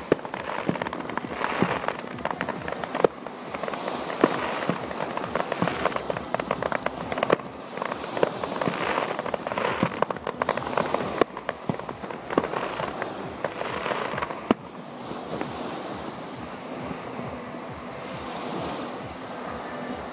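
Aerial fireworks bursting over the sea: a dense run of bangs and crackles that stops about three-quarters of the way through, leaving the steady wash of small waves breaking on the beach.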